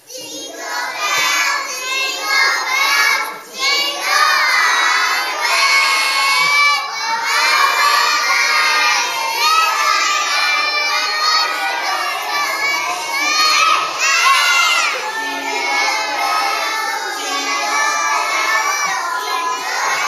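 A group of small children singing together in a loud chorus, many voices at once, starting suddenly.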